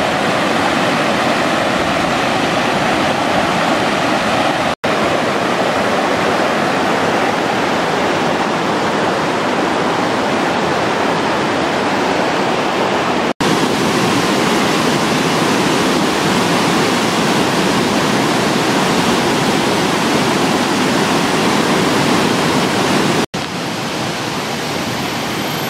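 Rushing water of a waterfall's rapids over rock, a steady loud rush broken by three brief dropouts at edit cuts, and a little quieter after the last one near the end.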